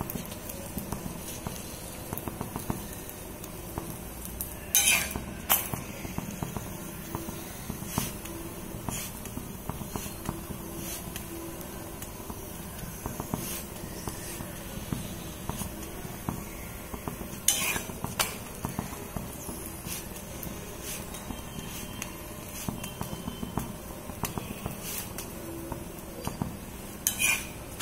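Steel spatula pressing and scraping a poli on a hot flat griddle, with a few louder metal scrapes and clinks about five seconds in, in the middle and near the end, over the steady low crackle of the flatbread cooking.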